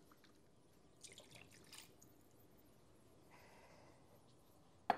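Faint pouring and dripping of stock into a pan of gravy, with light scraping, and one sharp click near the end.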